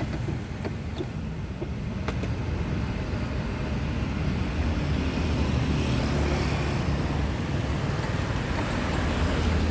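Steady low rumble of road traffic, with a few faint clicks in the first couple of seconds.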